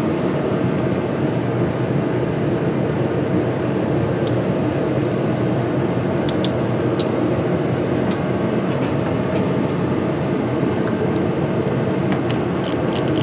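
A steady rushing hum, like a shop fan or ventilation, with a few sharp metallic clicks from hand tools working on battery cable terminals. Near the end comes a quick run of clicks.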